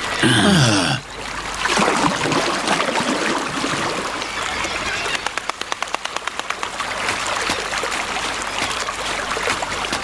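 Running water of a stream, steady throughout. It opens with a short, loud cry that falls in pitch, and has a quick run of ticks, about seven a second, a little past the middle.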